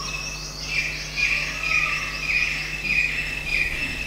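A small animal's chirping call repeated steadily about twice a second, each chirp short and dropping slightly in pitch.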